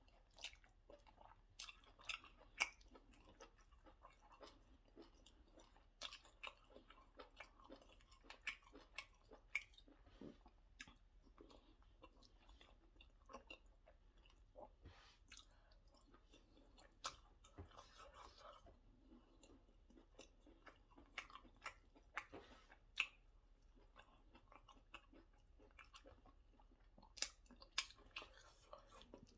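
A person chewing and smacking close to the microphone while eating white starch with egusi soup. It comes as a run of short, irregular mouth clicks and smacks.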